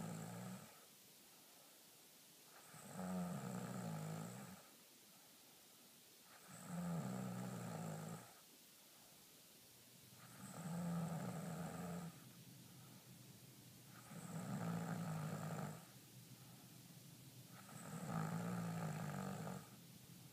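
Slow, regular snoring from a sleeper: one long rasping snore about every four seconds, each lasting about a second and a half, with quieter stretches between. Five full snores, plus the tail of one as it begins.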